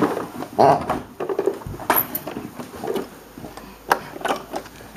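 Scattered small knocks, clicks and rustles of handling close by, with a brief soft child's vocal sound a little under a second in.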